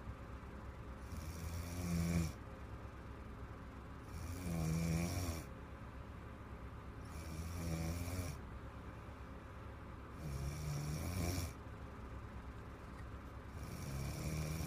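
A sleeping woman snoring: deep, rattling snores about a second long, coming regularly about every three seconds, five in all.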